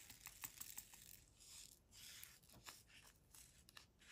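Faint, irregular small clicks and taps of a diamond painting drill pen setting resin drills one at a time into the adhesive canvas, with a couple of soft rustles.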